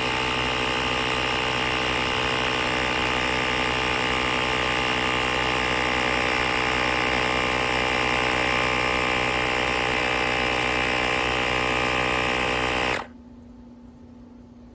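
AstroAI L7 cordless electric air compressor running steadily at a constant pitch, then cutting off suddenly about thirteen seconds in.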